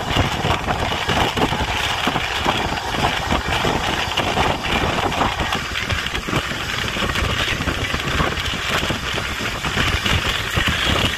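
Passenger train running at speed, heard at an open coach door: a steady rumble and clatter of wheels on the rails with rushing air.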